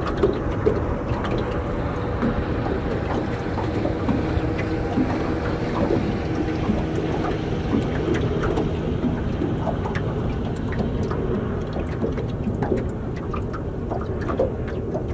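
Wind and water against a small boat: a steady low rumble with many small sharp taps of water on the hull. A faint steady hum joins for a few seconds in the middle.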